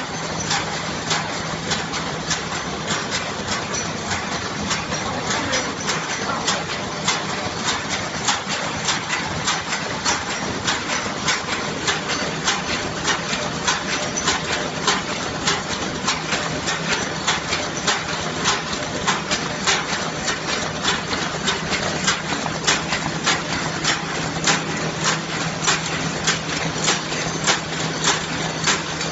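Cutlery and napkin wrapping machine running, with a steady hum under a fast, even rhythm of mechanical clicks as it cycles.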